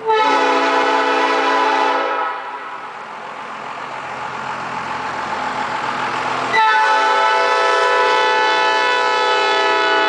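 Nathan Airchime P5 five-chime train horn blowing its way-out-of-tune chord in two long blasts: the first lasts about two seconds, and after a quieter stretch that slowly grows louder, the second starts about six and a half seconds in and holds on.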